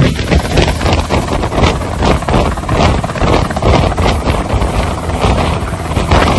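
Helicopter sound effect: loud, steady rotor chop with engine noise, a fast pulsing beat.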